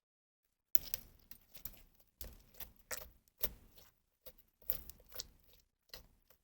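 Slime being kneaded and stretched by hand, making an irregular run of sticky clicks and pops that starts about a second in.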